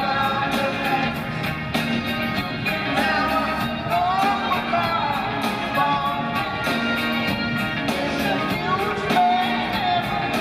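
Live rock band playing with a man singing lead over a steady drum beat.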